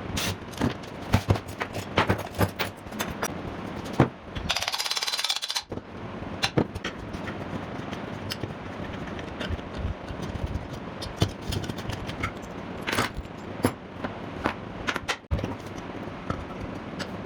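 Irregular sharp clicks and knocks over a steady low hum, with a loud hissing scrape about four and a half seconds in.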